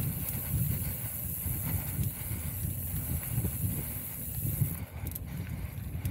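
Mountain bike riding along a dirt trail: wind buffeting the action camera's microphone as a bumpy low rumble, with knocks and rattles from the bike over the ground. A steady high hiss cuts out about five seconds in.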